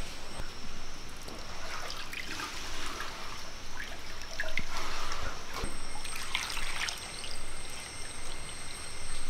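Liquid pouring and trickling: coconut milk poured from a clay bowl through a strainer into another clay bowl, then water poured from a clay bowl over squeezed grated coconut.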